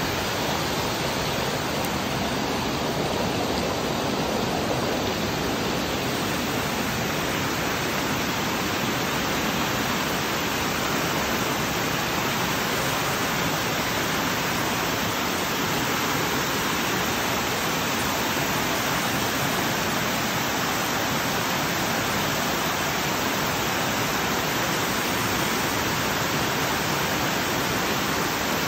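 Small waterfall pouring over rock slabs into a pool: a steady, unbroken rush of falling water, close and loud.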